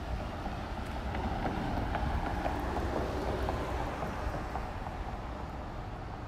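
Outdoor street ambience with wind rumbling on the microphone, and a car driving past, swelling near the middle and fading toward the end.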